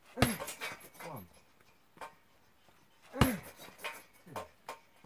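Kicks landing on a hanging heavy punching bag: two loud sharp thuds about three seconds apart, each followed by a short falling grunt, with a few smaller knocks in between.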